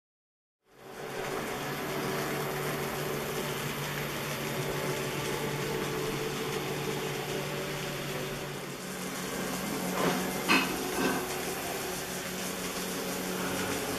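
Model train, a RENFE 333 diesel locomotive model hauling class 16200 coaches, running on a layout: a steady whirring hum from the motor and the wheels on the track, starting about a second in, with a few sharp clicks about ten seconds in.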